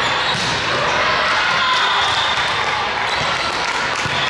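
Echoing ambience of a busy indoor volleyball tournament hall: volleyballs being struck and bouncing off the floor in scattered sharp thuds across several courts, over a steady wash of indistinct voices.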